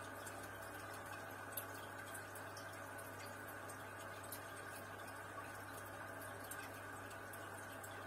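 Aquarium air bubbling: a steady, faint stream of air bubbles rising from sponge filters and popping at the water surface, with a steady low hum underneath and scattered small ticks of bursting bubbles.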